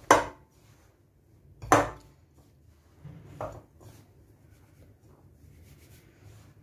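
Hands rubbing oil into fine semolina in a glass bowl, a faint gritty rustle, broken by two sharp knocks against the bowl, one at the start and one about a second and a half later, and a lighter knock about halfway.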